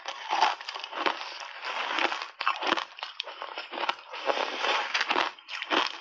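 Ice chunks coated in matcha powder being crunched between the teeth, a dense run of irregular cracks and grinding close to the microphone.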